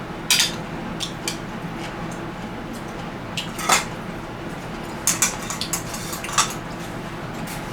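Eating utensils clicking and clinking against dishes during a meal: about a dozen short, scattered taps, some single and some in quick clusters, over a steady low background hum.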